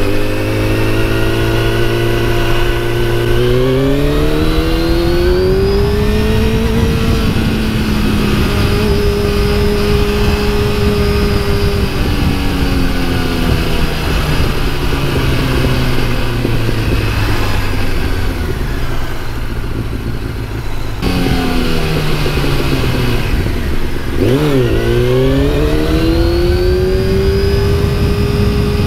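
Honda Fireblade's inline-four engine under way: the revs climb as it accelerates, hold steady, then drop off as it slows. Near the end the revs dip sharply and then climb again as the bike accelerates once more.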